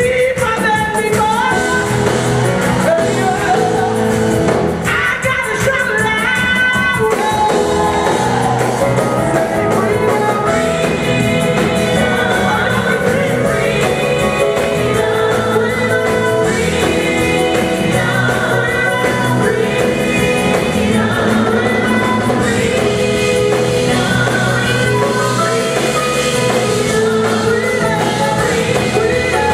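Live gospel song: singers on microphones over a drum kit, bass guitar and keyboard, the music running without a break.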